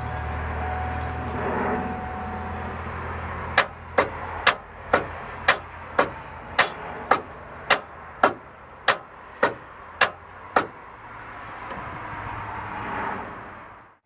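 Older Ford truck's starter clicking sharply about fourteen times, roughly twice a second, without the starter motor cranking the engine: the starter is not engaging. A steady low hum comes before the clicks.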